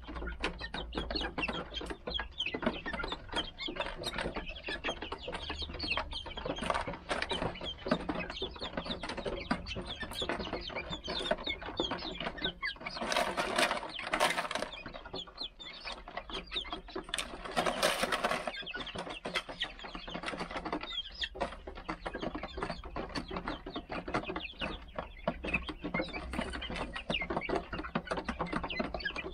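Young Golden Laced Polish chickens clucking while pecking and scratching at gravel: a dense run of quick little clicks and ticks, with two louder noisy spells around the middle.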